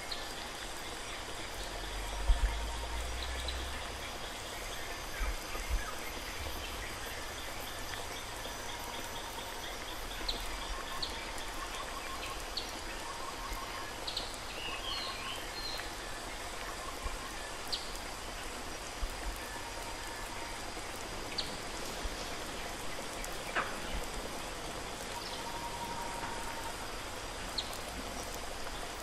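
Steady hiss like running water, with scattered faint chirps and clicks throughout. There are a few low thumps in the first seconds.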